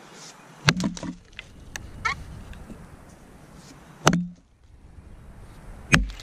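A vintage Kelly True Temper Wood Slasher boys axe, a 2.25 lb Dayton-pattern head on a 28-inch handle, chopping into a felled log. There are three sharp strikes: the first about a second in, the second about four seconds in, and the last near the end.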